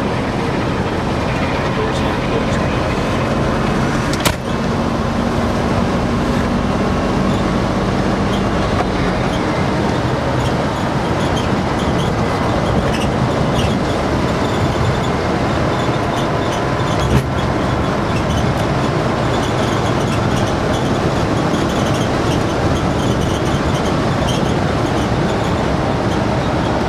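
Cabin noise of a 1965 VW Beetle with a 96-volt DC electric conversion driving on a city street: a steady road and running noise with a faint whine, and no engine exhaust. Two sharp knocks stand out, about four seconds in and again about seventeen seconds in.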